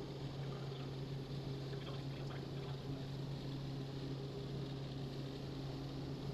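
Robinson R44 helicopter in flight: a steady low drone from the engine and rotors, with a constant rushing noise under it.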